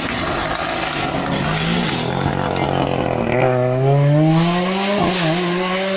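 Rally car's engine coming through a hairpin, then accelerating hard from about three and a half seconds in, its note climbing steadily with one sharp bang near five seconds, then holding at high revs.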